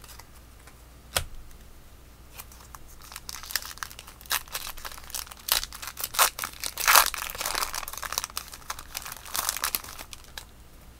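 A Topps baseball card pack wrapper being torn open and crinkled by hand, a dense crackling run that peaks about seven seconds in, after a single sharp click about a second in.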